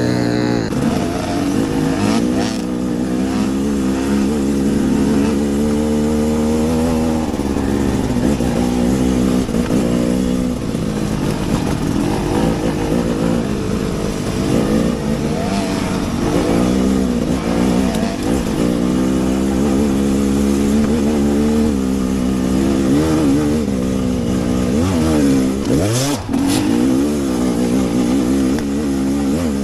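Enduro motorcycle engine being ridden off-road, revs rising and falling again and again as the throttle is worked, with a short sharp knock a few seconds before the end.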